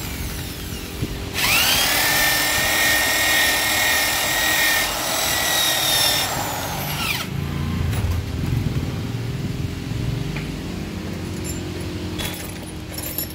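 Electric hand drill spinning up about a second in, running at high speed for about six seconds and winding down, turning a long bit in a Honda Shine motorcycle cylinder head's valve guide bore. A few light metal clicks follow near the end.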